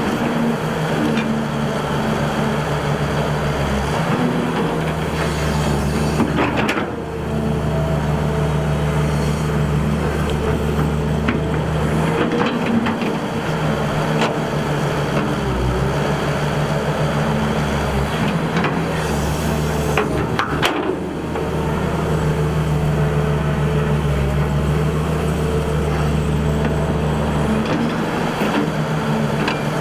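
Excavator's diesel engine running steadily, with occasional knocks as it digs. The engine sound dips briefly twice.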